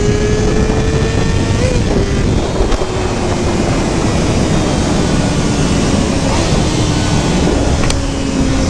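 Sport motorcycle engine running under way. Its pitch climbs slightly over the first couple of seconds, then slowly sinks, over heavy wind noise. One short click near the end.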